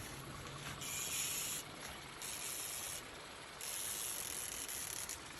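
Fishing reel being cranked to bring in a hooked kokanee: its gears whir in three or four spurts of about a second each, with short pauses between.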